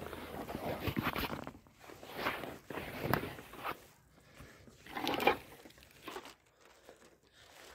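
Footsteps on dry leaf litter on a woodland floor, uneven steps with short pauses, quieter near the end.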